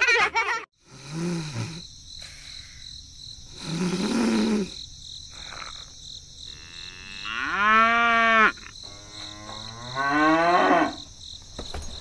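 Cattle mooing: four separate moos, the longest lasting about two seconds in the middle.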